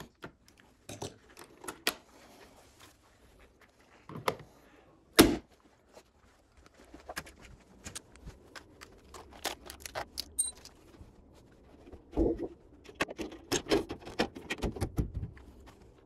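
Scattered clicks, knocks and clatter from hand tools and handling while moving about, with one sharp knock about five seconds in and a busier run of knocks in the second half.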